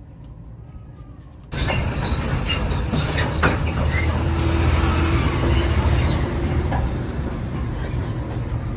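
A heavy vehicle's engine rumbling loudly, with metallic clatter and clicks. It comes in abruptly about a second and a half in.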